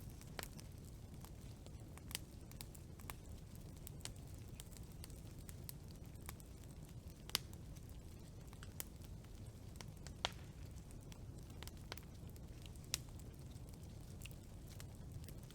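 Wood campfire burning: a steady low rumble of flames with irregular sharp crackles and pops, a few louder snaps about seven, ten and thirteen seconds in.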